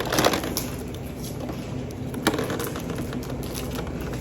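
Plastic toy packaging being worked open by hand, giving scattered crackles and clicks over a steady low hum.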